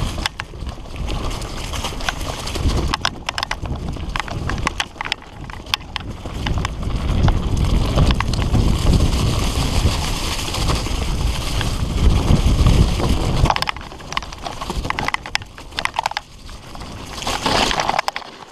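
Fully rigid Redline Monocog singlespeed mountain bike rattling and knocking as it rolls fast over a rough dirt trail, heard through a helmet camera's microphone. A heavy wind rumble on the microphone covers it from about seven seconds in to about thirteen seconds, then the clatter of the bike over bumps comes back.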